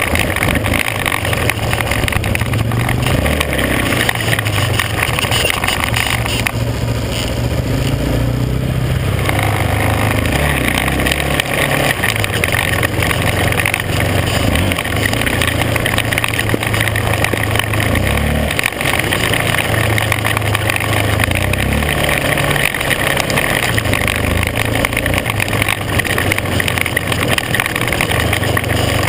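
Off-road vehicle engine running under way on a gravel trail, its pitch stepping up and down with the throttle, over a steady rush of wind and tyre noise.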